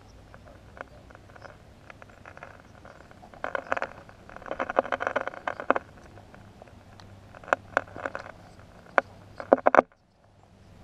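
Handling noise from a GoPro mounted on a walking stick as the stick is moved and turned: irregular clicks, knocks and scuffs, heaviest in the middle, with a few sharp clicks later and a brief cut-out near the end.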